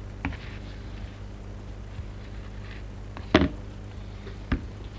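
Small parts and tools being handled on a chipboard worktop: a light click just after the start, then a sharp knock about three seconds in and another about a second later, as pliers are set down and the airsoft trigger housing is picked up and turned. A steady low hum runs underneath.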